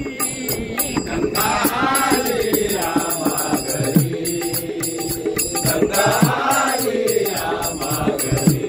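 A group of men singing a Marathi abhang devotional song in unison, kept in time by a steady beat of small hand cymbals (taal).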